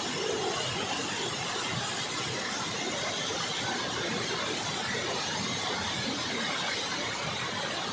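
Steady roar of a large waterfall, Hundru Falls on the Subarnarekha river, with water rushing and crashing.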